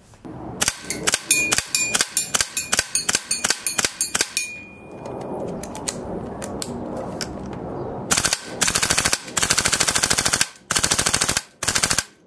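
Daytona Gun FAL airsoft rifle firing: a string of single semi-auto shots, each with a short ring, then after a spell of steady rushing noise, several full-auto bursts near the end.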